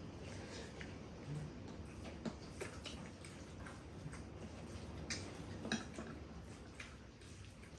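Eating sounds at a meal: scattered light clicks of spoons on bowls and mouth sounds of chewing, at irregular moments over a low steady background.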